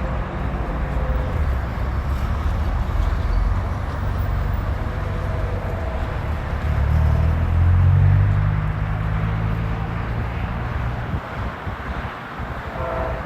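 Low vehicle engine rumble that swells to its loudest about eight seconds in and then fades.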